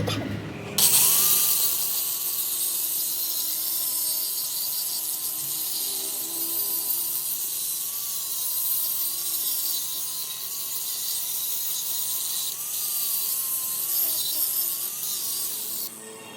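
Angle grinder grinding the steel of a truck axle housing: a steady, loud hiss that starts about a second in, with the motor's faint whine wavering under load, and cuts off near the end.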